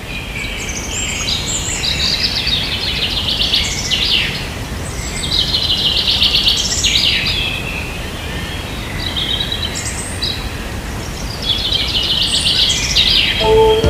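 A bird singing: four rapid trilled phrases a few seconds apart, over a steady low rumble of background noise. Music comes in near the end.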